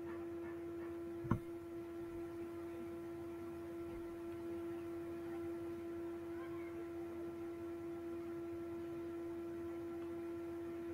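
Steady electrical hum with a fixed pitch and fainter higher tones above it, broken once by a single sharp click about a second in.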